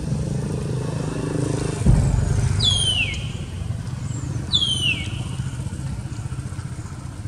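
A low, steady engine rumble, with a thump about two seconds in. Two high calls each slide down in pitch, the second about two seconds after the first.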